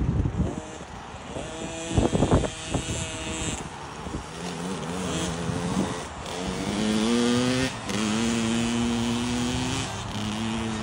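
Small Kawasaki two-stroke motocross bike being ridden around a dirt track, its engine note climbing again and again as it accelerates and shifts up through the gears. A couple of dull thumps about two seconds in.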